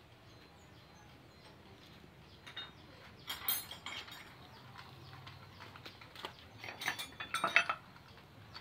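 Low room tone, then from about two and a half seconds in, two bursts of sharp metallic clinks and clatter, the second near the end being the loudest.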